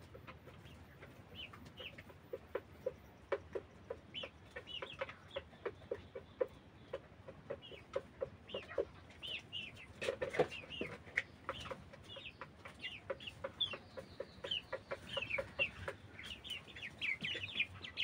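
A flock of young white broiler chickens clucking and peeping: a quick run of short low clucks with high chirps over them. The calls grow busier after about four seconds, with a louder outburst about ten seconds in.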